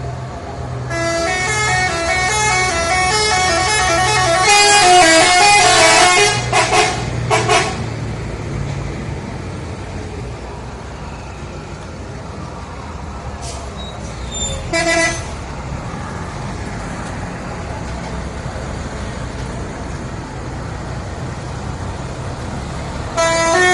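Telolet bus horn, a multi-tone musical horn playing a quick stepping melody for about six seconds, followed by two short blasts. A brief toot comes about halfway through, and another melody starts near the end, with steady road noise between the blasts.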